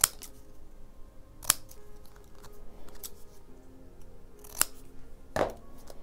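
Scissors snipping painted watercolour paper: three sharp, separate snips spread over several seconds, then a duller knock near the end.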